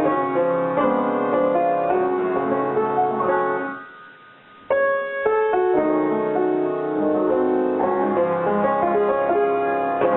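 Piano music with many quick notes. About three and a half seconds in it fades away, and a second later it cuts back in suddenly and plays on.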